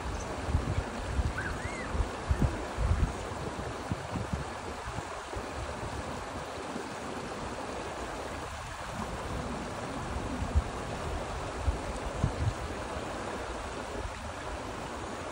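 Steady rush of flowing mountain water from streams and waterfalls, with irregular low rumbles of wind on the microphone, strongest in the first few seconds.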